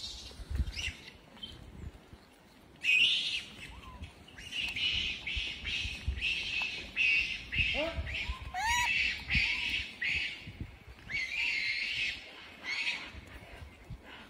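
Animal calls: repeated bursts of high, squeaky chirping calls, with a few short rising cries about halfway through.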